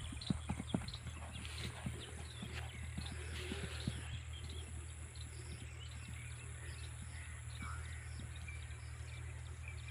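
Hoofbeats of a ridden horse going at a fast pace over soft farmland soil. They are sharp and close at first, then fade after a few seconds as the horse draws away, leaving a steady low hum underneath.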